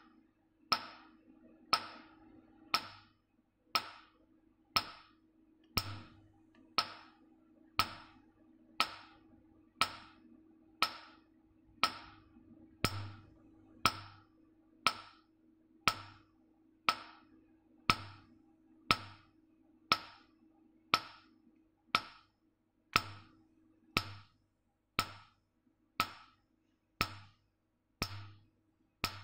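Nd:YAG laser handpiece firing pulses onto carbon gel on the skin in a carbon laser peel: a sharp snap about once a second, steady and even. A faint steady low hum runs underneath.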